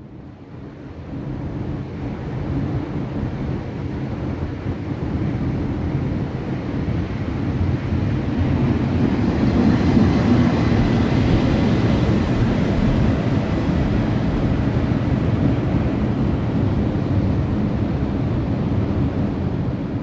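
PKP Intercity passenger train passing close by, its wheels rumbling steadily on the rails. The sound builds over the first couple of seconds and is loudest about ten seconds in, as the coaches go past.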